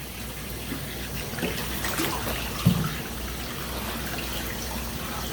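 Water running from a Python aquarium hose into a glass aquarium as it is filled, a steady trickling pour. A short low thump sounds about two and a half seconds in.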